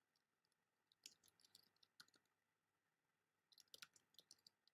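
Faint clicking of a computer being worked at a desk: two short runs of small clicks, about a second in and again after about three and a half seconds.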